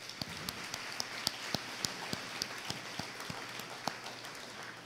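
Audience applauding: many hands clapping in a dense patter that thins and fades out near the end.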